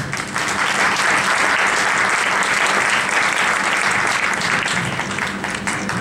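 Audience clapping: a dense, steady patter of many hands that eases slightly near the end.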